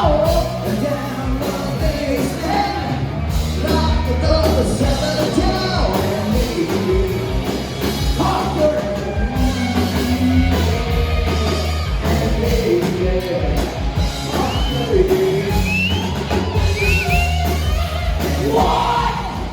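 Live rock band playing loudly, with a lead vocal singing over electric guitar, bass and drums.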